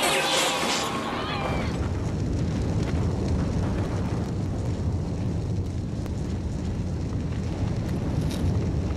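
A steady, dense low rumble. A few high chirping, gliding tones fade out about a second and a half in.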